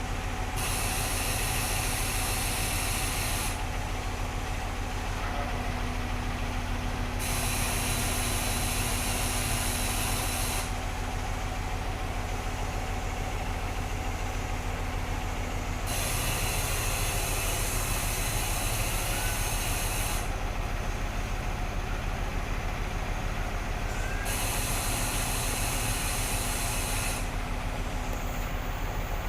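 Diesel engine of a concrete pump truck running steadily under load, with spells of loud hissing a few seconds long that start and stop about four times.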